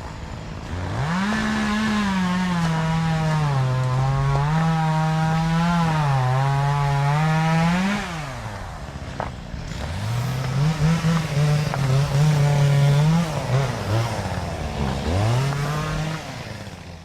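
A motor engine revving up and holding its speed, with the pitch wavering. A second run of revs follows, rising and falling more quickly, and the sound cuts off at the end.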